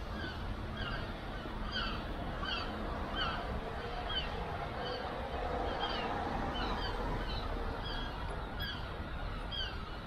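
Several birds calling: many short, downward-sliding cries that repeat irregularly and overlap, over a steady low background hum.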